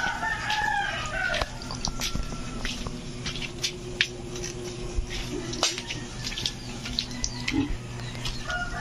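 Knife scraping the hair off a scalded pig's skin in short, irregular strokes, with water splashing as it is poured over the carcass.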